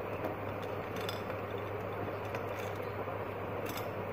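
Steady room noise with a constant low hum and a few faint, light clicks.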